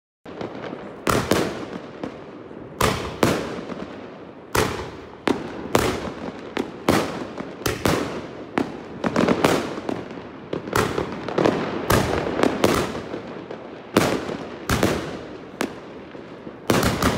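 Pangu Yellow River 25-shot consumer firework cake firing in quick succession: a string of sharp bangs, one or two a second, with a noisy wash hanging between them, starting a moment in.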